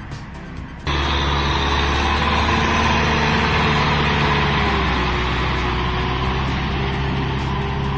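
Kubota M6040SU tractor's four-cylinder diesel engine running steadily under load while it pulls a rotary tiller through wet rice-paddy mud. It starts suddenly about a second in, and its pitch sags slightly about halfway through.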